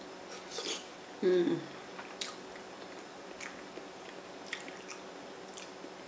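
Close-up eating mouth sounds: wet lip smacks and finger licking, a handful of sharp clicks spread across the few seconds. About a second in comes a short hummed vocal sound that falls in pitch, the loudest moment.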